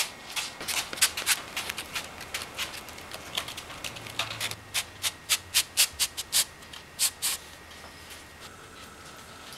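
A hand patting and rubbing skateboard grip tape down onto the deck: a run of short pats, about two or three a second, that stops about seven and a half seconds in.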